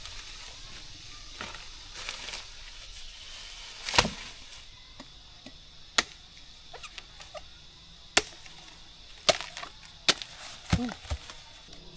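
A blade chopping into a bamboo shoot to cut it free: about seven sharp, irregularly spaced chops, the loudest about four seconds in.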